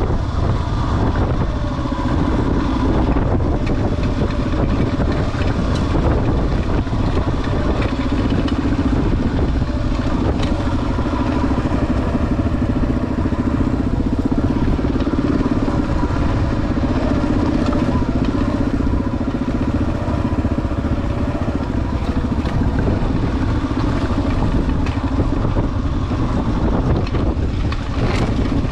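Kawasaki KLR 650's single-cylinder four-stroke engine running steadily at a fairly even speed as the motorcycle rides a rough dirt trail, its pitch wavering a little with the throttle.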